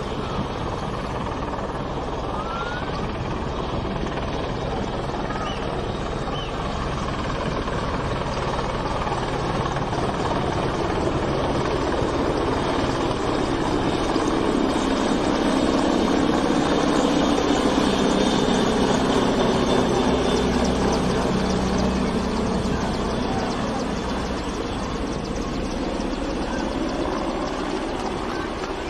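AgustaWestland AW101 Merlin helicopter flying past low: a steady rotor and turbine sound that builds to its loudest about two-thirds of the way through, then fades.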